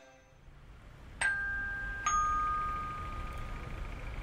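Two-tone doorbell chime: a ding followed about a second later by a lower dong, each ringing out slowly, over faint low background noise.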